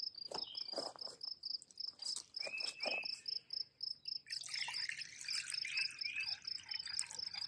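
An insect trilling in an even, high pulsing chirp, about five pulses a second, with a few bird chirps and light knocks over it.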